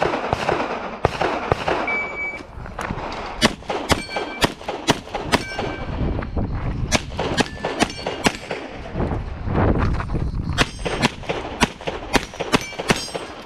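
Pistol shots fired in quick strings with short pauses between them, some followed by a brief metallic ring from hits on steel targets. A short high beep sounds about two seconds in, before the main shooting starts.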